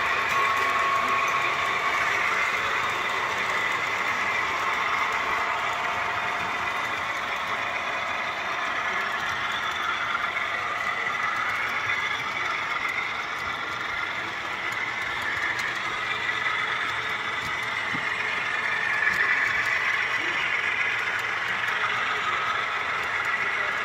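Model trains running on a layout: a steady whir of locomotive motors with wheels rolling along the track, a faint whine that wavers slightly in pitch.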